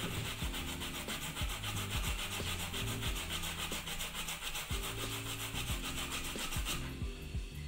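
Raw cassava root rubbed up and down a stainless steel box grater in quick, evenly repeated scraping strokes, stopping shortly before the end.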